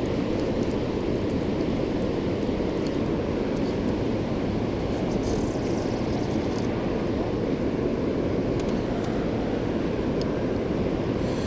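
Steady low rush of river water pouring below a dam, an even noise that never lets up.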